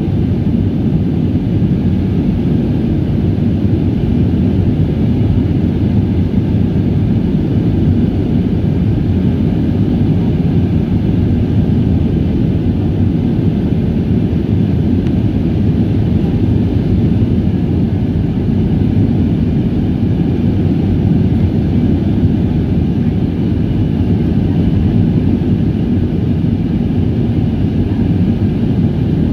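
Steady low rumble of a jet airliner's engines and rushing air, heard inside the passenger cabin during the climb after takeoff.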